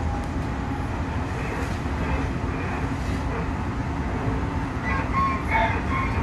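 Odakyu 3000 series electric train heard from inside its motor car (Mitsubishi IGBT-VVVF inverter) while running along the line. There is a steady rumble of wheels on rail and running gear, with a few brief higher-pitched tones near the end.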